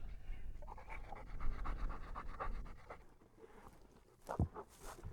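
Hunting dog panting rapidly, about five breaths a second, fading out about three seconds in; a couple of short knocks follow near the end.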